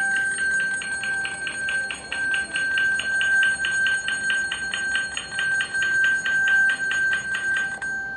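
Cigar three-reel slot machine's win payout rollup: a fast, even run of bell-like dings, about five or six a second, over a steady ringing tone, stopping near the end as the credits finish counting up.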